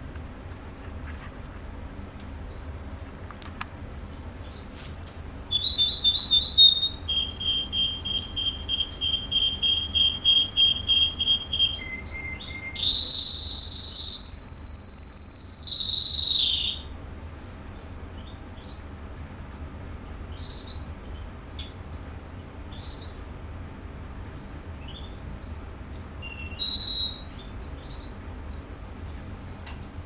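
Russian song canary singing a long song of rapid trills, including a two-pitched rolling trill and a long loud sustained roll about halfway. A quieter stretch of short scattered notes follows, and the trills return near the end.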